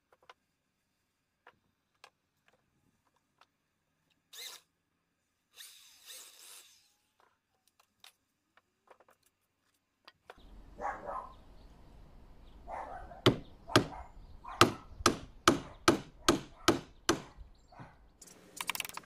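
A wooden mallet striking a chisel, chopping into a block of reclaimed timber: a steady run of about a dozen sharp blows, two or three a second, starting a little past halfway. Before that, only faint knocks and scrapes of wood blocks being handled.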